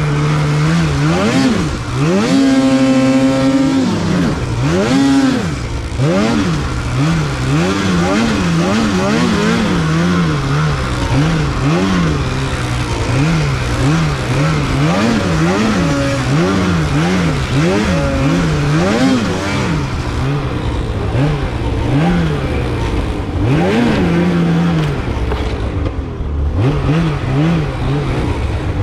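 Polaris Khaos Slash 9R snowmobile's two-stroke engine revving up and down again and again under quick throttle blips, with a longer, higher rev held about two to four seconds in.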